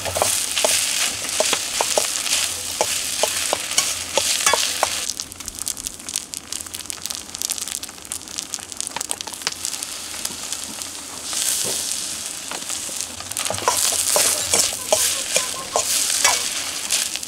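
Rice frying in a wok over a fire, sizzling while a metal ladle scrapes and clacks against the pan as it is stirred. The sizzling and clacking ease off for several seconds in the middle, then pick up again.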